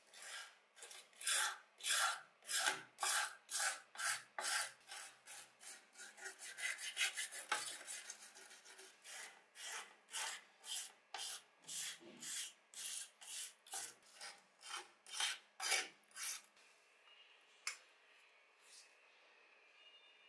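A stiff brush scrubbing softened, stripper-lifted paint off a die-cast metal model car body, in rough back-and-forth strokes about two a second. The strokes come faster in the middle, then die away after about sixteen seconds, leaving a few single scrapes.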